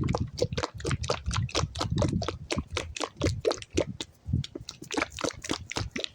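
Pump lotion bottle holding a mix of lotion and sunflower oil being shaken hard, the liquid sloshing and slapping inside in quick even strokes, about five a second, to blend the two.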